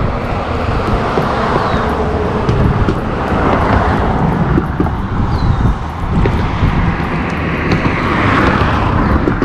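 Road traffic passing close by, a steady rumble and hiss that swells twice, about four and eight seconds in, as vehicles go past.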